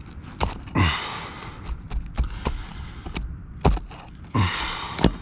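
Sharp knocks and clicks of a roofing tool working nails loose from brittle asphalt shingles, with two longer scraping, creaking pulls, about a second in and near the end.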